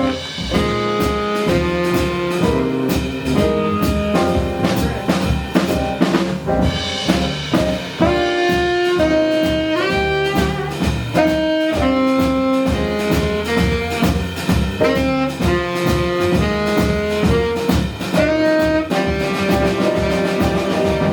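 Live jazz ensemble: a saxophone plays a melodic line of held and stepping notes over drum kit and rhythm section.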